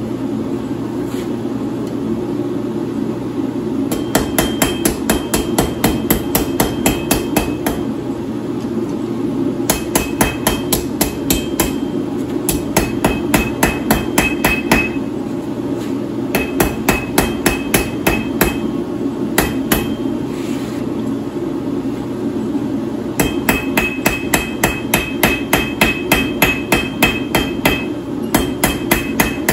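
Hand hammer striking a red-hot 3/8-inch round steel bar on an anvil, drawing out a taper. The blows come in runs of about three to four a second, each with a bright ring, and the runs are broken by short pauses. A steady low rush runs underneath.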